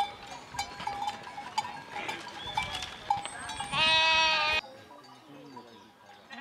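A large flock of sheep and goats on the move: hooves scuffing dry ground and animal bells clanking, with one loud bleat about four seconds in. After that the sound drops suddenly to a quieter level, with fainter bleats.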